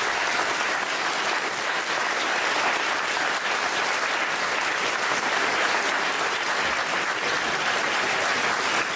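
Large audience applauding steadily in a big hall after a talk ends.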